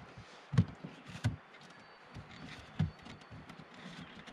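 Knocks and handling sounds from lashing a wooden splint onto a broken canoe seat with cord: three low knocks among smaller clicks and rustles as the cord is wrapped and pulled around the seat frame.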